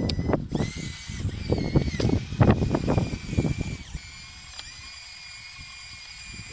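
Electric drive motors and gearbox of a radio-controlled Bruder Cat D5 model bulldozer whining steadily, the pitch sliding briefly as the motors change speed. Over the first four seconds the whine is mixed with loud rough crackling and rattling, then only the whine goes on, quieter.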